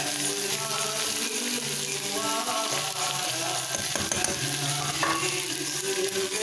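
Noodles, vegetables and pork sizzling in a pan on the stove while being stirred with a spoon, with music playing underneath.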